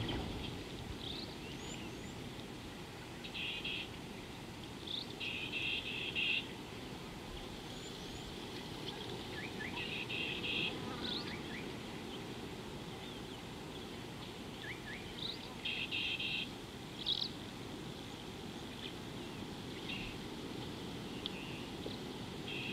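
Dry-bush waterhole ambience: wild birds give short chirps, and a short buzzy trill repeats four or five times, every five or six seconds, over a steady low rumble of background noise.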